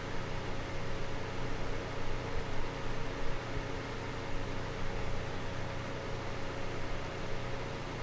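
Small desk fan running steadily: an even rush of air with a steady hum underneath.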